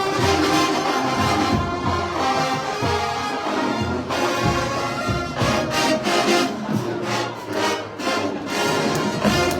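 Marching band playing: brass over steady drum hits, stopping right at the end.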